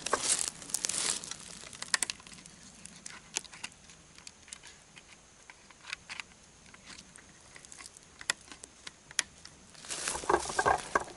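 Rustling and crunching in dry leaf litter, then a quieter stretch of small sharp clicks and handling noises as a trail camera is opened by hand to pull its memory card. More leaf rustling and crunching comes near the end.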